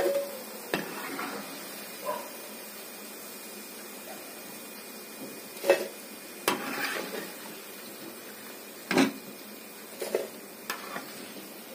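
A metal spoon knocks and scrapes against a pan of hot oil as fried besan-onion badi are turned and lifted out. Several sharp, unevenly spaced clinks sound over a steady hiss of frying.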